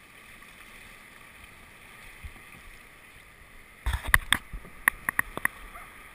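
Sea water lapping with a soft, steady hiss of small surf, then from about four seconds in a quick run of sharp splashes and slaps of water close by.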